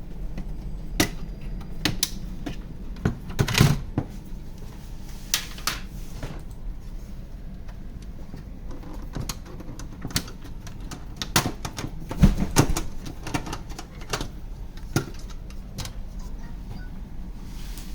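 Irregular clicks and knocks of hands working on a desktop PC's case and memory modules, with louder clusters of clicks about three seconds in and again about twelve seconds in, over a low steady hum.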